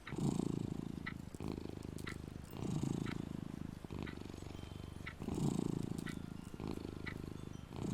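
Domestic cat purring steadily, swelling louder about every two and a half seconds as it breathes in and out.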